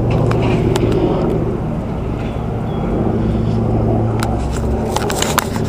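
Steady low vehicle rumble with a hum, broken by a few sharp clicks.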